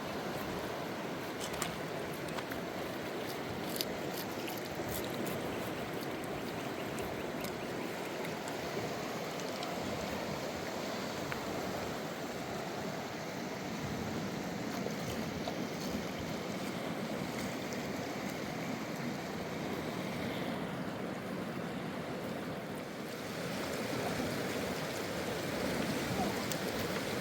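River water flowing, a steady rushing noise with a few faint clicks in the first few seconds.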